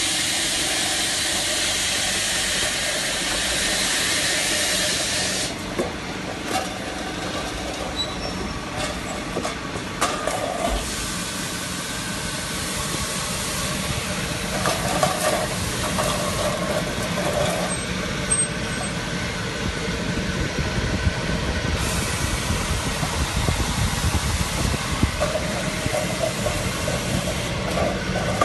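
Metal can washing machine running, with a steady hiss of spray or air over a continuous machine rumble. The hiss is strongest for the first five seconds and comes back about 22 seconds in.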